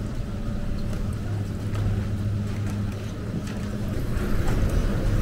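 Detachable gondola station machinery running with a steady low hum while cabins roll through on the station rail, with faint clicks. It grows louder near the end as a cabin comes through toward the station exit.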